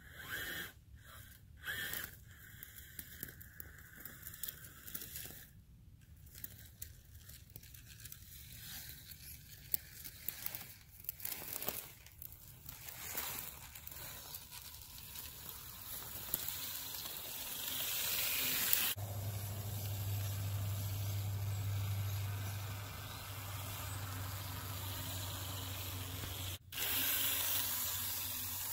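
RC crawler truck pushing through dry grass and dirt on a mound: irregular crackling, rustling and scraping. After an abrupt change about two-thirds of the way in, a steady hiss with a low hum takes over.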